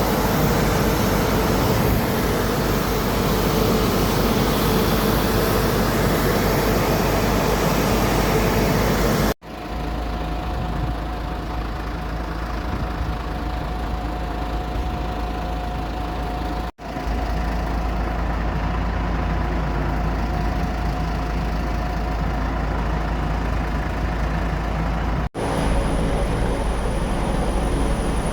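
Aircraft engines running steadily, with a low rumble and a held hum, broken three times by abrupt cuts.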